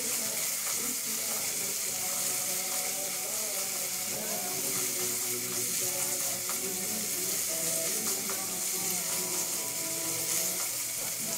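Diced boneless chicken sizzling in hot oil in a nonstick pan over high heat: a steady frying hiss while a silicone spatula stirs the pieces.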